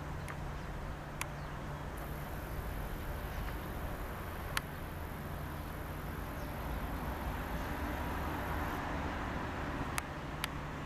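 Harz narrow-gauge steam tank locomotive 99 7232 working slowly through the depot yard, heard from a distance as a steady rumble and hiss that swells a little in the second half. A few sharp clicks sound over it.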